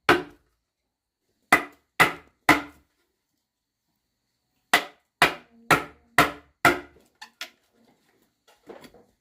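Hard blows of a tool on wood, about two a second: three strikes, a pause of about two seconds, then five more, followed by a few lighter taps near the end.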